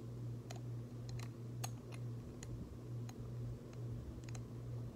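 Lego bricks clicking as they are handled and pressed together: a handful of light, sharp plastic clicks at irregular intervals, over a steady low hum.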